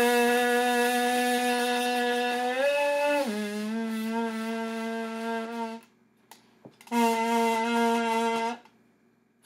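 Homemade kazoo, a paper towel roll with wax paper over one end, blown with one of its air holes covered. It gives a long buzzing note that rises briefly and then drops lower about three seconds in. After a pause of about a second comes a shorter buzzing note.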